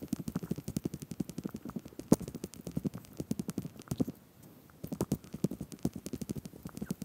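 Boots crunching and scraping over loose stones and gravel, with trekking pole tips clicking against rock, in quick steady succession; one sharper click about two seconds in and a short pause a little after four seconds.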